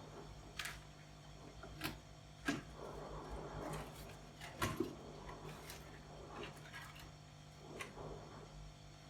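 Scattered light clicks and taps of small tools handled at a repair bench, about half a dozen, with the sharpest a little after four and a half seconds in, over a steady low hum.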